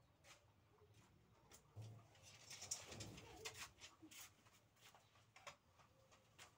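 Near silence, with faint scattered clicks and a brief rustle about two to three and a half seconds in, as a person moves close by.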